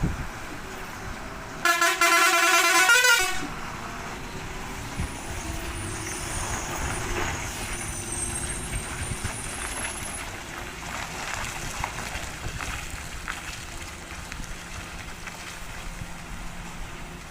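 Heavy truck driving, its horn sounding once for about a second and a half near the start, over steady engine and road noise that continues afterwards.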